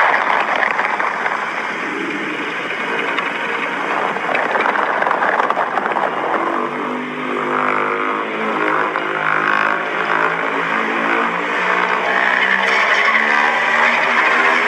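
A long, rasping monster roar built from Godzilla roar recordings, noisy at first and turning into a more pitched, wavering bellow about six seconds in.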